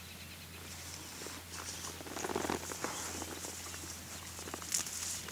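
Faint rustling and light crackling of dry grass and sagebrush underfoot, with scattered small ticks, a little louder about two seconds in.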